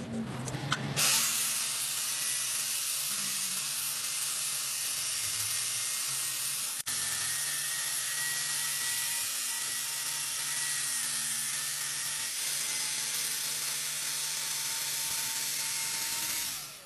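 A steady high hiss with a faint steady whine in it, starting about a second in, broken by a brief dropout about seven seconds in, and fading out at the end.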